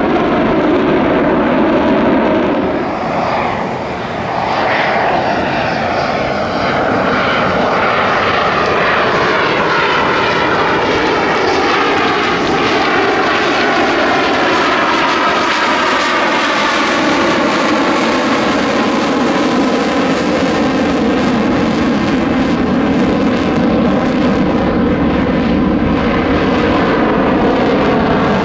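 Dassault Rafale C's twin Snecma M88 afterburning turbofans, loud and continuous through a display manoeuvre with the afterburners lit. The noise sweeps slowly in pitch as the jet moves across the sky, with a brief dip in loudness about four seconds in.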